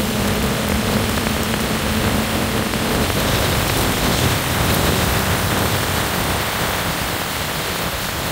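Steady rushing of wind and water around a motorboat underway, with a low engine hum beneath it that fades out about three seconds in.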